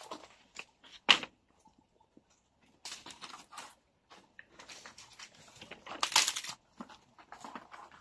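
Dry firewood being gathered from a pile of dead sticks: a sharp snap about a second in, then bouts of cracking, crunching and rustling of dry wood and leaf litter, loudest around six seconds in.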